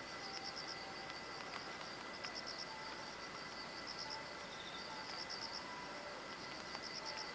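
Insect chirping in short pulsed trills of four or five quick notes, repeating about every second and a half over steady background noise, with a few faint short whistles in between.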